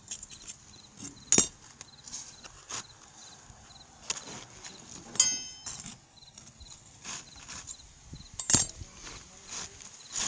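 Scattered scrapes and taps of hands and tools working an asphalt roof shingle into place, with a short metallic clink about five seconds in and a sharper knock near the end.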